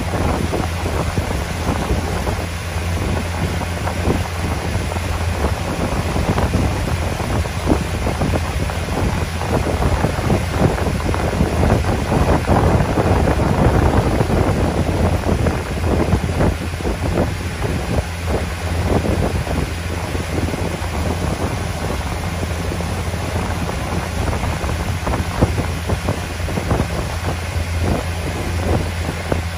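Boat engine running steadily under way, a constant low hum, with wind buffeting the microphone and water rushing past the hull; the noise swells a little about halfway through.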